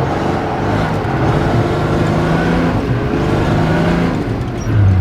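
Four-wheel-drive vehicle engine running under load on an off-road track, its pitch shifting up and down with the throttle. A stronger, steady engine drone comes back near the end.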